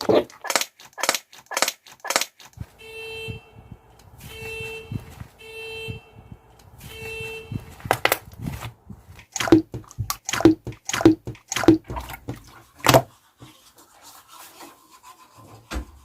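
Slime being squeezed and worked, giving quick sticky clicks and pops, with four short honking squeaks in the middle as air is forced out of it.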